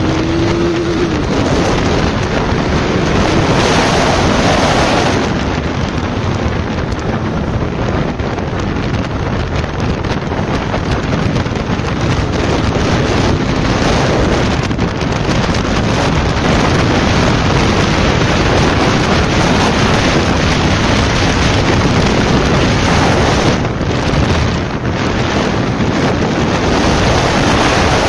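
Heavy wind noise on the microphone of a sport motorcycle riding at speed on the open road, with the engine and tyre roar underneath. Near the start the engine rises in pitch as it accelerates.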